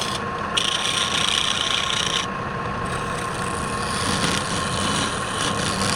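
Wood lathe running with a steady whine while a tool or abrasive rubs against the spinning wood. The rasping drops away briefly twice.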